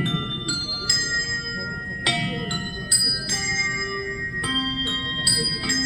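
Handbells played as a melody, struck about every half second, each note ringing on and overlapping the next.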